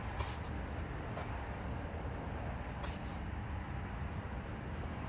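Razor blade scraping sticker residue off a car's front fender in a few short, scratchy strokes, over a steady low background rumble.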